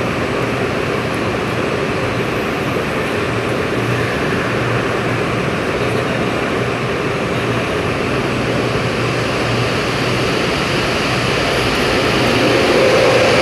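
N700S Kamome Shinkansen train running, a steady rushing noise that grows a little louder near the end.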